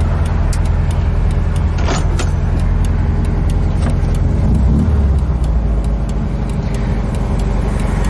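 Air-cooled VW Type 3 Fastback's flat-four engine running as the car drives, heard from inside the cabin, with a light, fast ticking over it. The engine note swells briefly a little past halfway.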